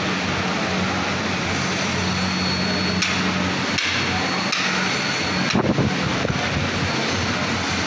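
Black plastic belt hangers clicking and clattering as they are handled and clipped onto leather belts, a few sharp clicks with the loudest past the middle. Underneath is a steady background hum and hiss.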